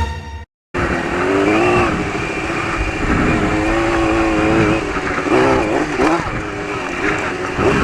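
Motorcycle engine running under throttle, its revs rising and falling as the bike is ridden, after a short cut-off fragment of sound near the start.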